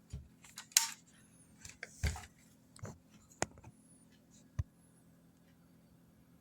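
Handling noises: a string of scattered clicks and knocks with two short rustles, the loudest rustle under a second in.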